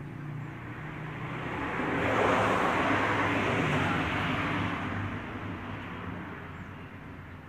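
A vehicle passing by: a rush of road noise that swells over a couple of seconds, peaks, and fades away again.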